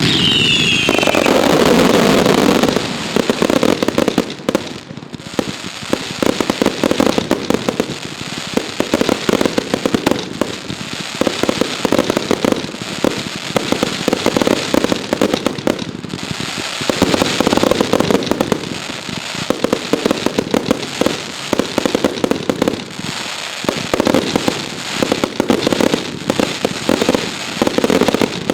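Consumer fireworks going off in a dense, continuous run of bangs and crackling reports, opening with a short whistle that falls in pitch.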